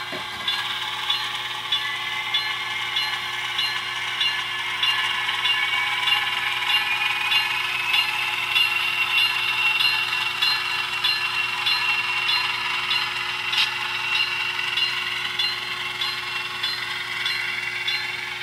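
HO-scale Soo Line diesel road-switcher's DCC sound decoder playing a diesel engine through the model's small onboard speaker as it runs, the engine sound rising in pitch over the first several seconds. A regular ticking runs over it.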